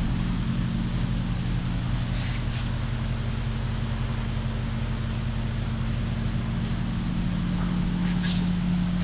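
Steady low mechanical drone of a running machine, with two brief hissing sounds about two seconds in and near the end.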